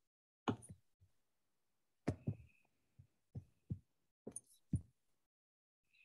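About nine faint, irregular clicks and knocks from a computer mouse and keyboard, each short and sudden.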